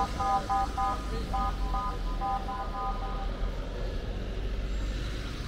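Steady low outdoor street rumble, with a run of short, high beeps, each several notes sounded together, some clipped and some held, that stops about three seconds in.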